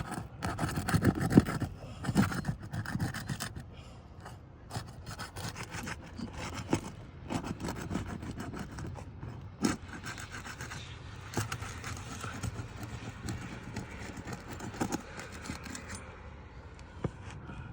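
Irregular scraping and rubbing with scattered clicks and knocks as asphalt roof shingles are lifted and worked loose, busiest in the first few seconds.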